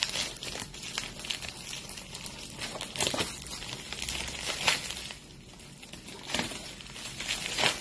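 Padded Priority Mail envelope being torn and crinkled open by hand: irregular crackling and rustling, with a quieter spell a little past the middle.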